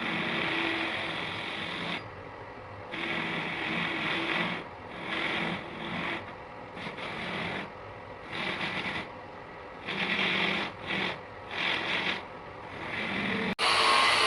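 Metal being abraded to strip rust, in repeated short stop-start passes of harsh scraping and grinding, with a faint motor hum under the passes.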